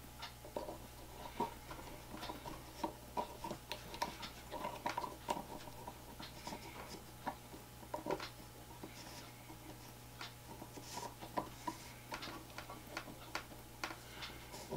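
Irregular small clicks and light taps from handling the small three-jaw chuck on a Dremel rotary tool, as a tiny drill bit is fitted and the jaws tightened by hand. The tool is not running.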